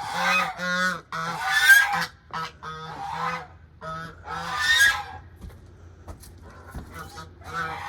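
Geese honking, a series of loud calls, most of them in the first two seconds and another about five seconds in, then fewer and quieter. One goose is agitated and threatening the person feeding them.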